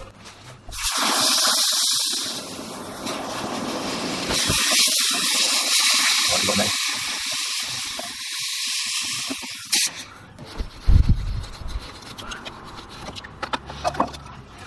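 Freshly cast, still-hot aluminium ball joint with its sprues being quenched in a bucket of water: a loud steam hiss in two long stretches, easing briefly after about three seconds and dying away about ten seconds in, leaving faint bubbling and small clicks.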